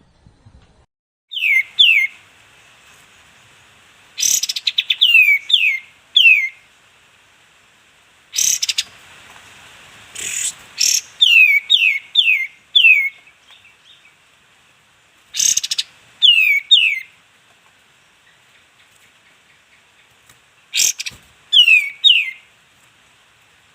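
Songbird song on a training recording: short, clear chirps that each slide downward in pitch, given in quick clusters of two to four, broken every few seconds by a brief harsh rattle.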